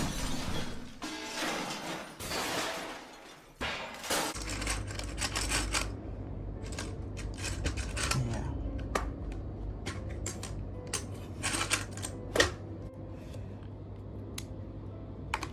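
Animated-series soundtrack with music for about the first four seconds. Then, over a steady low hum, scattered sharp plastic clicks of a freshly lubed Gateron Milky Black linear keyboard switch being handled and pressed with a keycap fitted.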